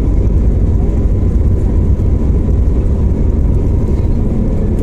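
Airbus A321neo airliner heard from inside the cabin while rolling on the ground: a loud, steady rumble of jet engine and airframe noise with a faint steady whine over it.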